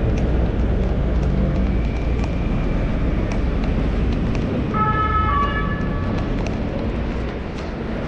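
Steady low rumble of city street traffic. About five seconds in, a horn-like tone sounds for about a second and steps down in pitch partway through.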